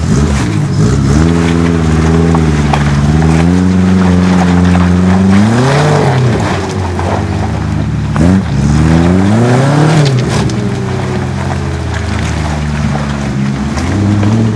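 Small off-road 4x4's engine revving up and down under load on a steep, muddy hill climb. The revs build to a peak around the middle, surge twice more shortly after, then ease to a lower steady run.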